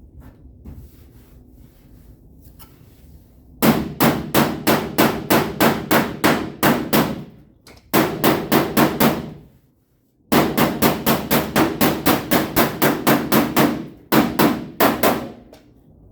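Hammer striking the sheet-steel quarter panel of a Dodge Ram pickup in quick runs of blows, about four a second, with two short pauses. It is bodywork, tapping the damaged panel back into shape.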